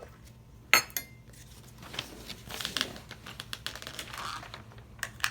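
Kitchen utensils and dishes clinking and knocking while batter ingredients are measured out: one sharp clink about a second in, then a run of small clatters and a couple more clicks near the end.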